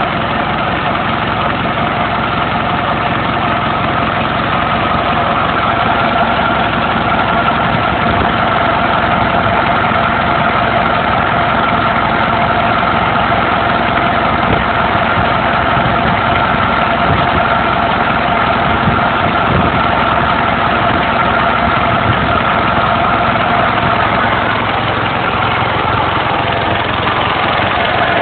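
Land Rover 200Tdi 2.5-litre four-cylinder turbo-diesel idling steadily with heavy breathing: crankcase blow-by puffing out of the engine.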